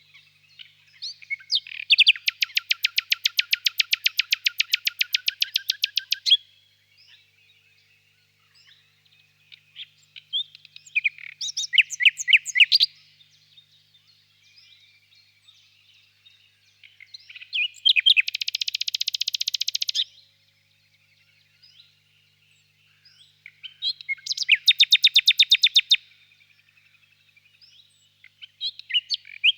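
Nightingale singing in loud phrases of fast, rapidly repeated notes, each lasting two to four seconds, with pauses of several seconds between them. One phrase is a buzzy rattle. Fainter chirping fills the gaps.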